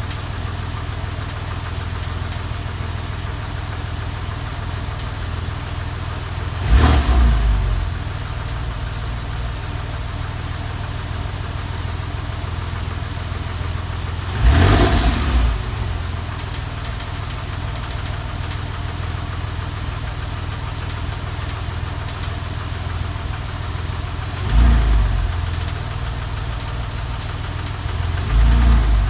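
Porsche 996's flat-six engine idling steadily, swelling briefly louder four times for about a second each. The recording is made to document a noise from the engine.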